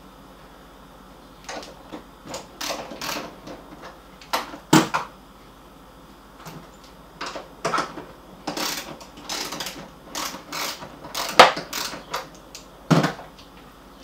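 A wrench loosening the 3/8 bolts on a refrigerator's top door hinge: irregular metal clicks and scrapes, with sharper knocks about five seconds in and twice near the end.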